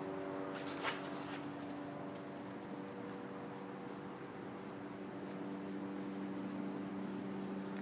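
Crickets trilling steadily at a high pitch over a low steady hum, with a single short click about a second in.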